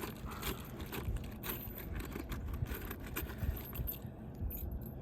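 Scattered light clicks and scuffs of a roof shingle being handled and worked during a simulated repair, over an uneven low rumble.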